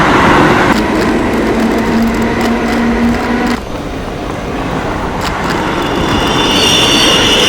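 Railway train noise: a loud rumble with a steady low hum that cuts off about three and a half seconds in, then builds again, with high squealing tones near the end.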